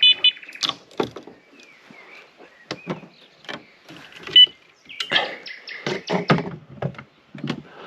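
Irregular knocks, thuds and clatter of fishing gear and a small boat being handled in a hurry, with a short buzzing tone right at the start and a brief high tone about four and a half seconds in.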